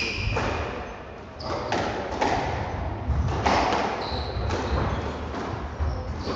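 Squash rally: the ball cracks off rackets and the front and side walls about once a second. Shoes squeak briefly on the wooden court floor, and footsteps thud as the players move.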